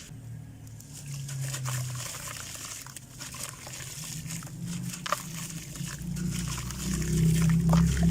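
Crumbly red dirt breaking apart, with scattered small crackles, over a low drone that grows louder over the last few seconds.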